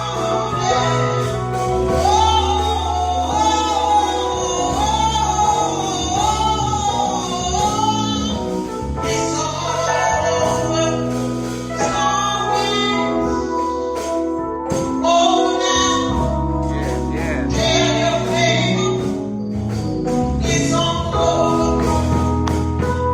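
Gospel song with singing, a female lead voice over a steady band accompaniment.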